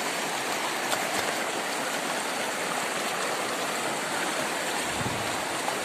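Shallow, fast river rushing and splashing over rocks in a steady, unbroken wash.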